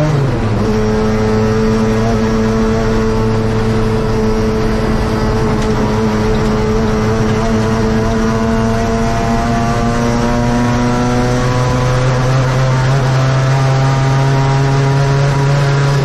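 Saloon race car engine heard from inside the cockpit under racing load. The pitch drops sharply at the start with an upshift, then climbs slowly as the car accelerates along the straight, and eases down near the end as the driver lifts.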